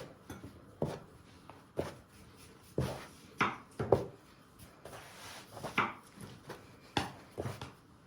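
Stiff dough being kneaded by hand: irregular dull thumps and knocks, about one a second with a few in quick succession, as the dough is pressed and turned.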